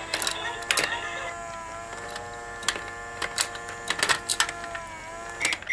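Toy crane game's small electric motor running with a steady whir, the pitch dipping slightly now and then, with repeated sharp plastic clicks and clacks as the crane arm is worked.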